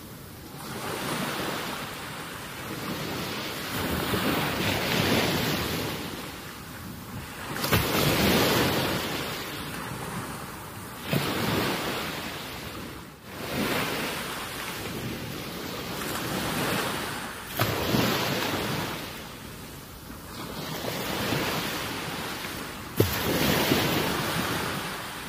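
Wind rushing over the microphone in gusts, swelling and fading every few seconds, with a few sudden buffets.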